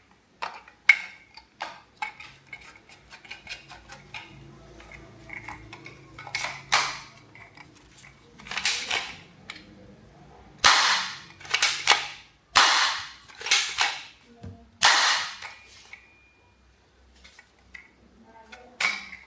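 Toy blaster gun shooting: a few light clicks, then a run of about seven short, loud blasts, each under a second long.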